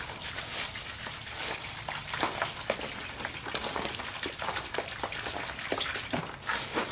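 Garden hose trickling water into a plastic five-gallon bucket of whole grain: a low-pressure flow, an irregular patter of small splashes over a steady hiss.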